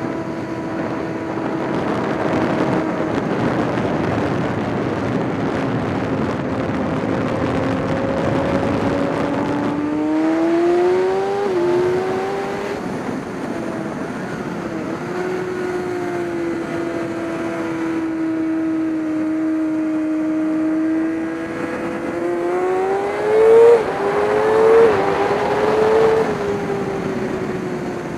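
Race vehicle's engine at high revs under a steady rush of noise. The pitch holds and sags slowly, then climbs with quick gear-change drops around the middle and again near the end, where it is loudest.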